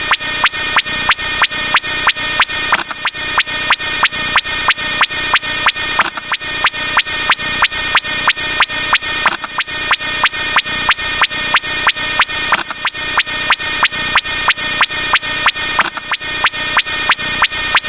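A short squeaky sound effect repeated rapidly, about three times a second, each one a sharp high squeak. The run of squeaks dips briefly and restarts about every three seconds, like a loop.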